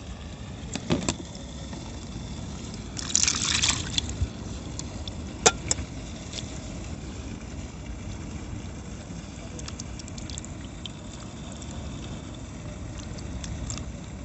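Water splashing and sloshing briefly, with a few sharp clicks, over a steady low background rumble.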